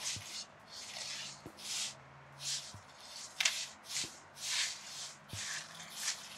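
Hands pressing and spreading soft pizza dough across a floured carbon steel pan: a string of short swishing rubs, about two a second.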